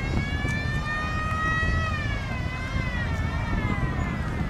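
A siren wailing: several held tones rise slowly for about two seconds and then fall, over a steady low engine rumble.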